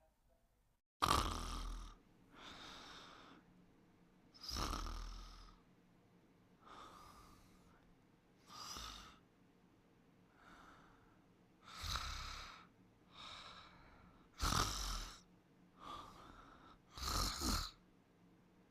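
Snoring in sleep: a run of rough, raspy breaths, one every one to two seconds, alternating louder and softer ones, the first about a second in being the loudest.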